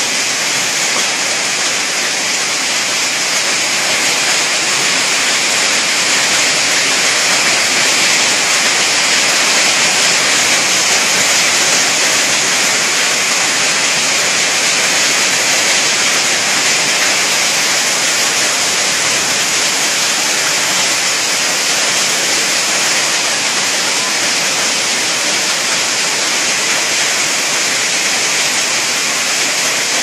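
Heavy hailstorm: hail and rain pouring down in a dense, steady rush of noise.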